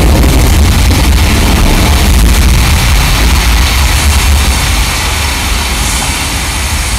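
Volcanic eruption rumble effect over the arena sound system: a loud, steady, deep rumble with a hiss on top, distorted by the camera's microphone.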